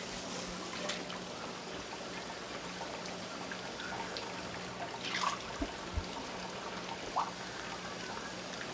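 Running water trickling and pouring steadily from the hoses of a seafood-stall tank, over a faint steady hum. A few light knocks of basins being handled come about five to seven seconds in.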